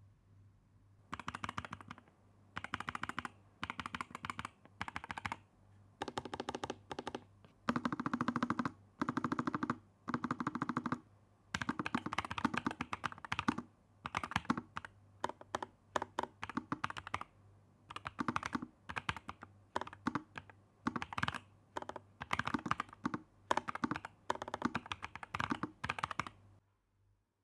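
Typing on a NuPhy Air75 V2 low-profile mechanical keyboard: quick runs of key clacks in short bursts with brief pauses between them, stopping near the end.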